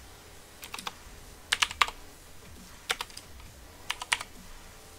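Computer keyboard typing in short bursts of a few keystrokes each, with pauses of about a second between the bursts.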